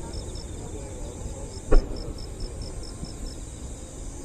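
Insects chirping steadily, a high chirp repeating about four times a second over a constant high trill. One short thump about two seconds in.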